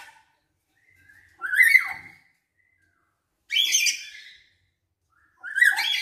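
Caged lory giving loud, shrill calls, three in a row about two seconds apart, each about a second long and sweeping up then down in pitch. The bird is learning and practising its calls.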